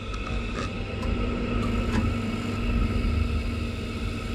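Gas boiler starting up after its power is switched back on, its fan running with a steady low hum and a few faint ticks in the first couple of seconds, as it tries to light with a newly fitted spark generator.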